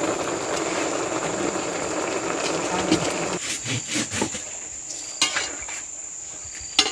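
A pot of leafy greens boiling over a wood fire, bubbling steadily, which stops about three seconds in. A steady high-pitched insect shrill runs throughout and is left alone afterwards, with a few sharp clicks near the middle and end.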